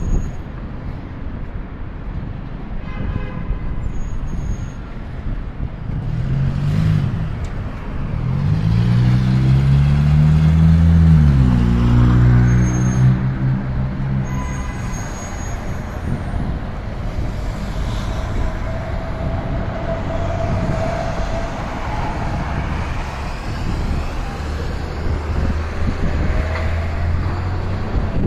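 Downtown street traffic: cars and trucks passing. One engine revs up and passes close by, loudest about ten seconds in.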